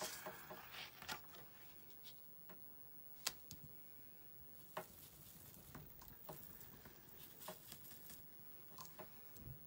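Faint scratchy rubbing and scattered light taps of an ink blending tool worked in small circles over a stencil and cardstock.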